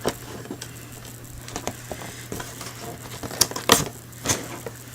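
Cardboard model-kit boxes being handled: light taps and rustles, with two sharper knocks about three and a half seconds in and another a little later, over a steady low hum.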